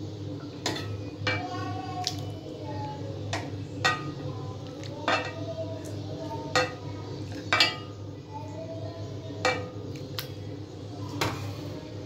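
A serving spoon clinking against a glass serving dish and the pot as mutton-and-potato curry is spooned out: about ten separate sharp clinks at uneven intervals, some ringing briefly, over a steady low hum.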